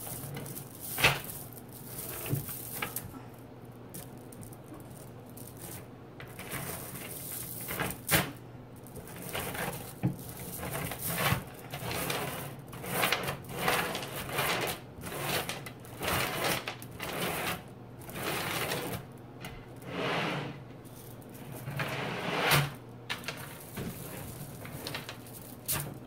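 Small neodymium magnet balls clicking, rattling and snapping together as hands handle a large block of them, with a few sharp loud snaps among the clatter. The audio is played backwards along with the picture.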